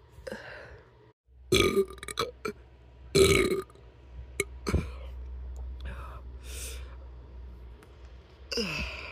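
A person belching repeatedly after chugging a drink: a string of about eight burps, short and long, the loudest two near the start. A low steady hum runs underneath from about a second in.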